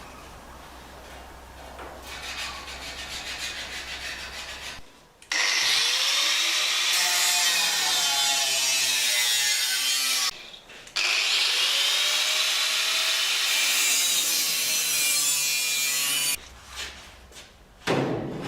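Handheld power tool working on steel bodywork, in two loud runs of about five seconds each that start and stop abruptly, with a faintly wavering pitch.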